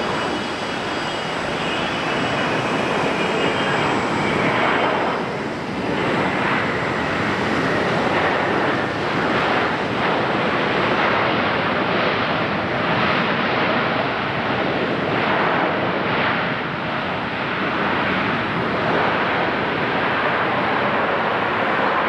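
Boeing 777's GE jet engines during the landing rollout just after touchdown: a loud, steady rush of engine noise, with a whine that falls in pitch over the first several seconds.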